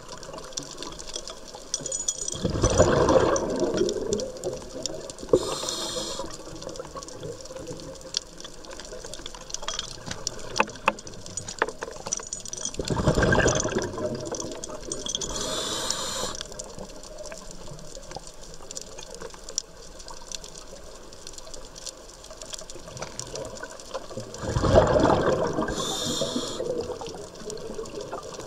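Scuba diver breathing through a regulator underwater: three slow breath cycles about ten seconds apart, each a rush of exhaled bubbles with a short sharp hiss from the regulator, over a steady fine crackle of clicks.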